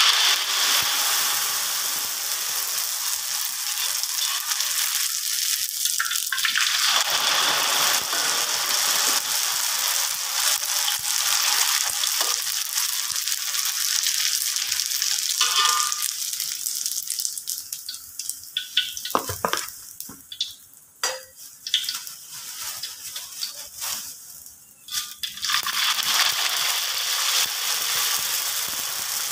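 Dried sotanghon glass noodles deep-frying in hot oil in a wok: a steady sizzle that thins to spurts a little past the middle, with a few sharp knocks, and picks up again near the end.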